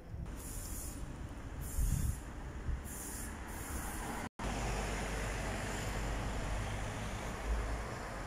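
Outdoor street ambience: a steady rumbling hiss, with three short hissing swells in the first half and a brief dropout about four seconds in where the footage cuts.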